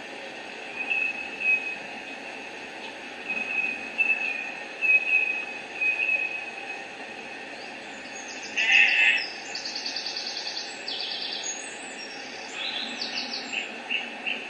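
Recorded birdsong from a farm sound-effects file, played back through a small speaker on a model-railroad sound card: strings of short chirps, a louder call about nine seconds in, then fast high trills and more short repeated notes. A steady hiss runs beneath.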